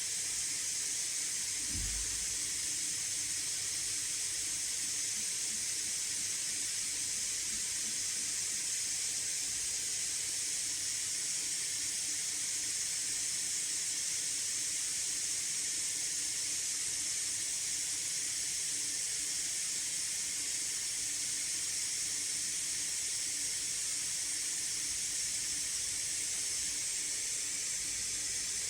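MSI Raider GE78HX gaming laptop's cooling fans blowing at a steady high speed, a constant airy hiss with a faint low hum, under full benchmark load. A brief low thump about two seconds in.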